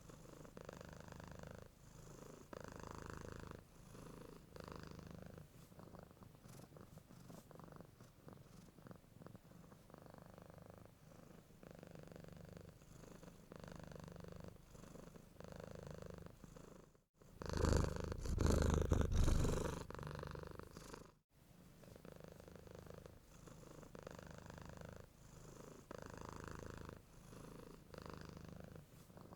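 Domestic cat purring steadily, the rumble swelling and fading with each breath about every two seconds. Around the middle a louder, closer stretch of purring lasting about four seconds cuts in and out abruptly, with a brief dropout at each edge.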